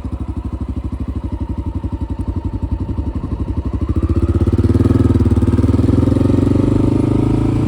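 Honda XR dirt bike's carbureted single-cylinder four-stroke engine running at low revs with even, distinct firing pulses, then revving up and getting louder about four seconds in as the bike accelerates.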